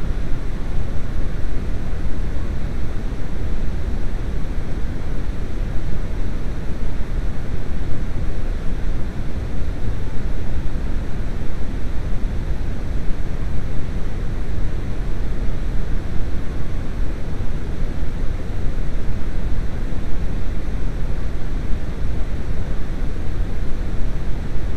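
Steady, loud low rumbling noise with no distinct events or pitch.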